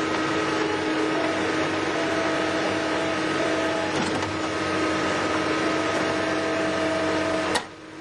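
NPK E203 skid-steer-mounted hydraulic hammer pounding concrete: rapid, continuous hammering over the skid steer's steady engine and hydraulic drone, which stops abruptly near the end.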